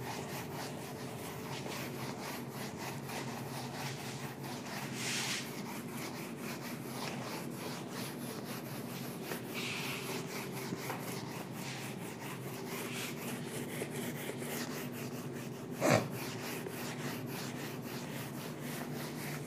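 Whiteboard duster wiping across a whiteboard in repeated rubbing strokes, with a single thump about sixteen seconds in.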